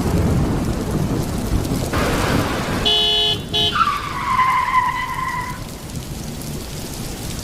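Heavy rain falling with a low rumble of thunder. About three seconds in, a short horn-like tone sounds twice, followed by a higher drawn-out tone lasting about a second and a half.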